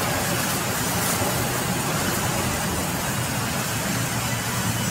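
Large sawmill band saw running steadily with other mill machinery, a wooden board being fed through and sawn lengthwise. A loud, even mechanical noise with a low hum beneath it.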